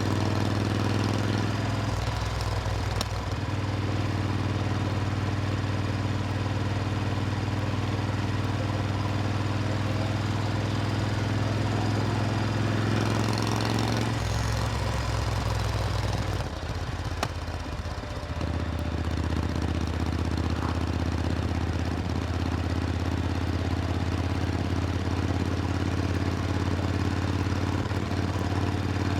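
Supercharged Triumph Thunderbird Storm's 1700 cc parallel-twin engine running at a steady note. The note shifts briefly about two seconds in and again a little before halfway, then drops away for about two seconds past halfway before settling back to steady.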